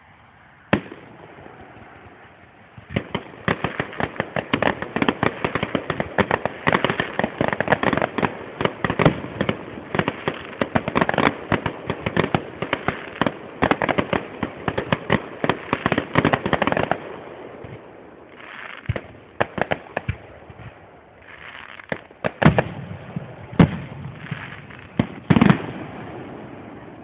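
Aerial fireworks display: a single bang just under a second in, then a dense barrage of rapid crackling reports for about fourteen seconds, easing into a few scattered loud bangs near the end.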